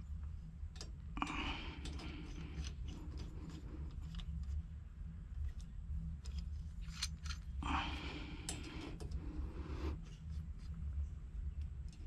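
Handling noise from a tubing cutter and copper pipe: scattered light clicks and two stretches of scraping and rustling, one about a second in and a longer one from about eight seconds, over a low steady hum.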